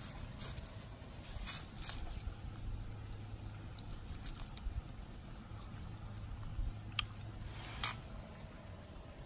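Dalmatian puppy rustling and nosing through thick grass, with a few short crackles and snaps of blades and leaves.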